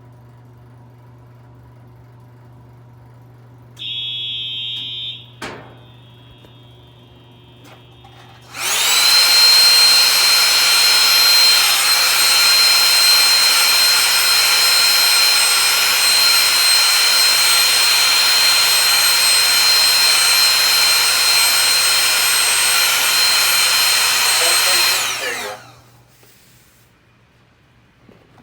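Fire alarm horn sounding a loud, steady buzzing tone without pulses for about seventeen seconds, then cutting off. Before it come a short high beep and a sharp click.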